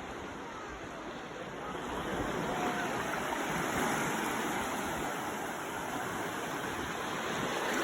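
Ocean surf washing onto a beach: a steady hiss of breaking waves that swells about two seconds in and stays up.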